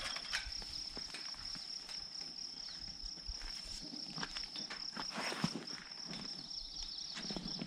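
Steady high-pitched insect trill, with scattered soft rustles and clicks, a cluster of them about four to five seconds in.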